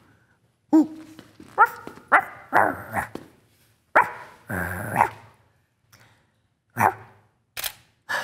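A person making short bark-like yips and calls, about half a dozen with pauses between them, each bending up and down in pitch. These are attention-getting noises aimed at a puppy being photographed.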